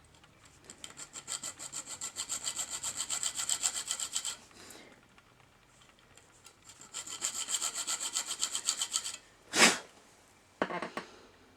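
A small hand saw cutting the metal body of a 1:64 die-cast toy car in quick, even strokes of about seven or eight a second, in two runs of a few seconds each. A brief loud noise follows about ten seconds in, then a shorter one.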